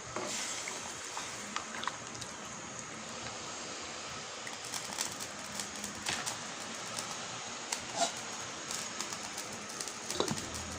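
Kitchen cooking noise: a steady hiss with scattered light clicks and taps, the clearest about eight seconds in and just before the end.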